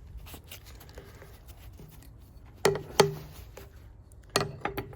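Parts of Felco No. 2 pruning shears being handled and wiped with a shop cloth: faint rubbing, then two sharp knocks a little past halfway and a quick cluster of clicks near the end.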